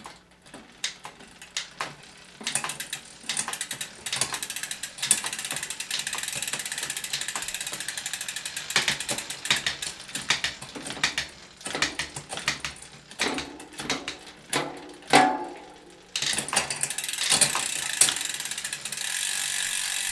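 Mountain bike drivetrain spinning in a repair stand: a MicroShift Advent X 1x10 rear derailleur shifting through the gears as the chain runs over the cassette, with the rear wheel's ratchet buzzing. A steady buzz holds for several seconds near the start and again near the end, and a run of sharp clicks from the shifts comes in between.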